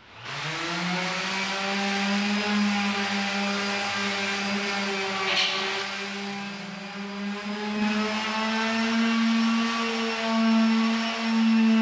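Electric palm sander switched on and spinning up to speed, then running with a steady hum while its sandpaper is pressed against a plastered wall.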